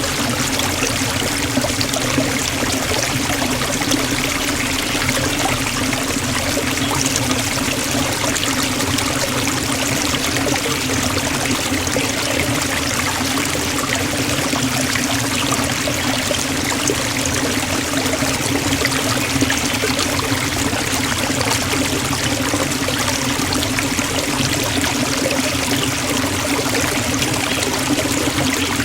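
Waterfall splashing steadily into a pool, a constant even rush of water.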